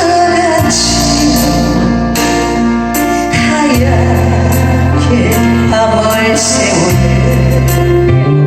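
Korean ballad music: a band or backing track with a steady bass line, sustained melody notes and regular cymbal hits.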